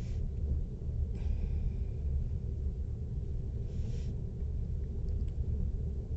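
Steady low rumble of a moving passenger train, heard inside the carriage.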